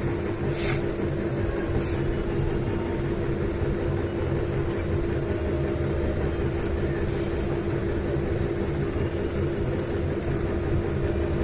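Steady mechanical hum with one constant tone and a low rumble beneath it. There are two short hissing sounds within the first two seconds.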